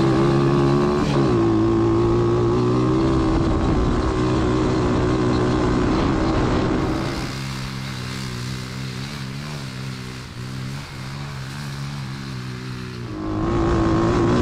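High-output 140cc single-cylinder pit bike engine in an off-road go-kart, running hard under full throttle at high revs. Its note drops briefly about a second in and climbs back. Through the middle it is quieter and more distant, its pitch wavering as the kart slides through the turns, then close and loud again near the end.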